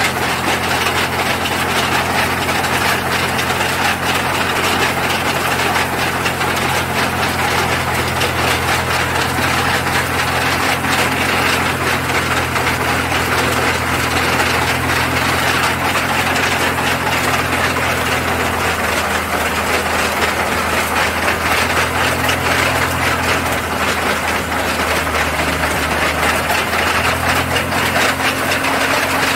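Engine-driven sugar cane crushing mill running: a steady engine hum under the clatter of its open cast-iron gears while cane is fed through the rollers.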